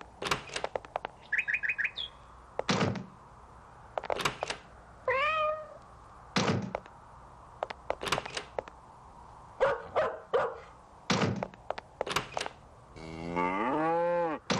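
Cartoon sound effects: doors knocking and banging shut and footsteps, with four quick high chirps early on, a cat's meow about five seconds in, and a long cow moo near the end. The animal calls are deliberately mismatched to the animals behind the doors.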